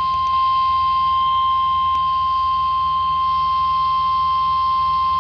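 NOAA Weather Radio 1050 Hz warning alarm tone: one continuous, steady, loud tone, heard over a radio receiver with a faint hiss and hum underneath. The tone is the signal that a warning message is about to be broadcast.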